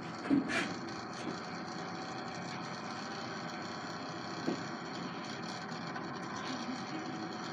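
Small pump motor of a swirling-glitter snowman lamp running with a steady whir, with a brief thump shortly after the start and a faint click about halfway through.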